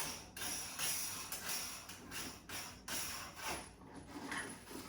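Metal fittings of a kitchen tap's flexible hoses clinking and rattling as they are handled, a quick run of small jingling knocks.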